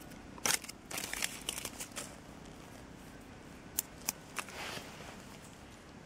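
Dry fallen leaves crackling and rustling as hands work in the leaf litter. A quick run of crackles comes in the first two seconds, then three separate sharp crackles and a short rustle a little past the middle.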